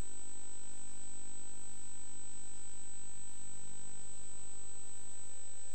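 A steady, high-pitched electronic tone held without a break over a faint background hiss.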